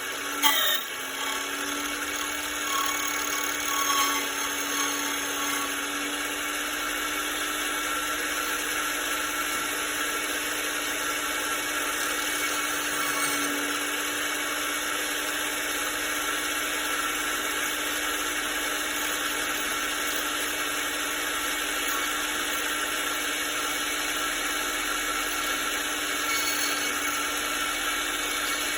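Tempest 007A key cutting machine running steadily, its motor and cutter wheel cutting a cylinder key blank as the copy is traced from the master key. A couple of sharp knocks come just after the start.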